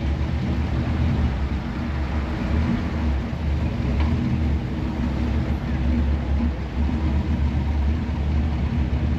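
The 454 big-block V8 of a 1964 Chevrolet Impala running steadily, a deep, even engine drone with no breaks.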